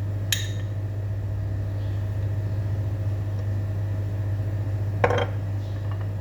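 Steady low mechanical hum of a running appliance, with a sharp click just after the start and a knock about five seconds in, kitchenware handled while food is prepared.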